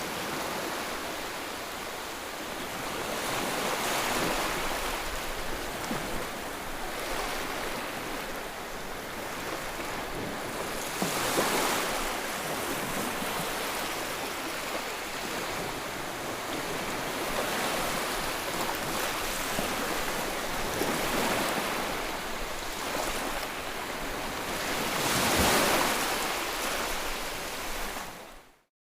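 Steady white-noise rushing, like ocean surf, swelling and ebbing every few seconds. It cuts out for a moment near the end.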